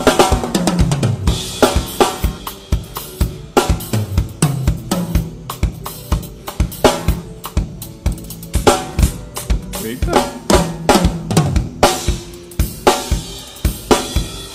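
Drum kit played solo: a busy groove on kick, snare and cymbals, broken three or so times by quick fills that run down the toms.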